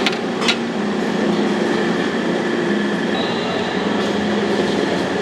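Steady roar of a street-stall wok station's gas burner, with two sharp knocks in the first half-second.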